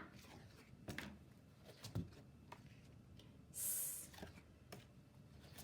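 A teacher's voice pronouncing the phonics sound for the letter s as a short, sustained hiss, "sss", about three and a half seconds in. Before it, a quiet room with a few faint clicks.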